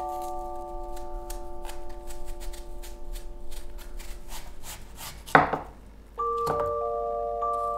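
Knife cutting apple: a run of small crisp cuts, then a chef's knife chopping through a peeled apple onto a wooden cutting board, with a sharp knock about five seconds in and another a second later. Soft bell-like background music plays under it.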